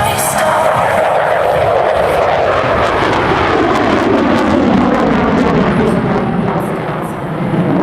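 F-22 Raptor's twin F119 jet engines running loudly as the fighter flies past, the pitch falling steadily as it moves away.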